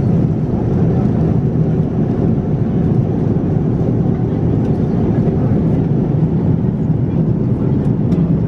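Steady cabin drone of a Boeing 787-9 airliner in cruise, a low, even rumble of engine and airflow noise, with a few faint clicks near the end.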